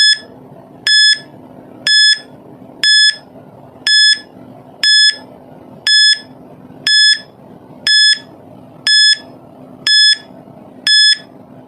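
Electronic timer beeping about once a second, each beep short and high, over a faint steady hum: a countdown timer giving time to answer.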